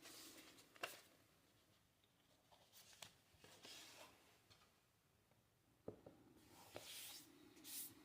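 Faint handling noises of packaging being opened: soft rustling and a few light clicks and taps.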